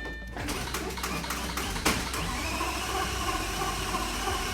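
A short beep, then the Lamborghini Gallardo's V10 being cranked over by its starter motor: a steady, rhythmic churning for about four seconds, not yet catching.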